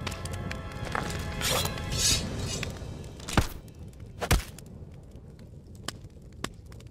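Background music with a couple of swishes, then two sharp thunks about a second apart as the music drops away. These are film sound effects of a knife thrown into an armoured trooper's helmet.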